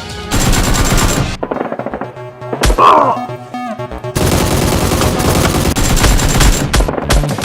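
Automatic gunfire sound effects in two long rapid bursts, with a single loud hit between them about three seconds in, over background music.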